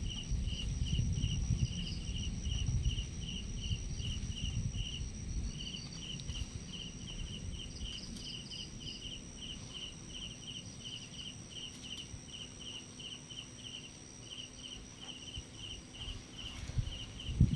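Night insects calling: a cricket-like chirp repeating evenly about three times a second over a steady high-pitched insect drone, with a low rumble of background noise underneath.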